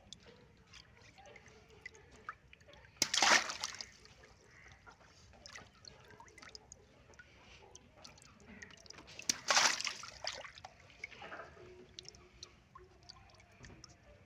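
Water balloons squeezed underwater in a tub until they burst: two sudden bursts with a splash, about three seconds in and again near the middle, with water trickling and sloshing in between.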